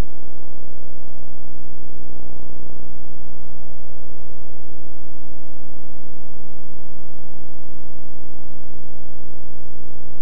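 A loud, unchanging electrical hum with hiss, a steady buzz of many even tones that never varies. It is the noise of a poor tape transfer, with no game sound audible.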